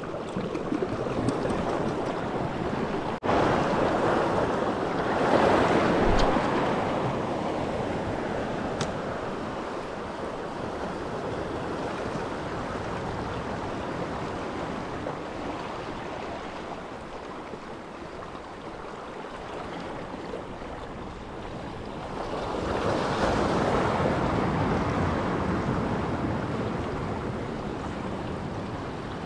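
Sea water washing and lapping around shoreline rocks: a steady rush that swells louder twice, about five seconds in and again from about twenty-two seconds.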